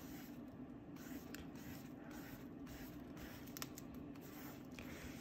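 Faint brushing and scraping of a paintbrush working acrylic paint across a sketchbook page, in a few soft strokes with a small click near the middle. A steady low hum runs underneath.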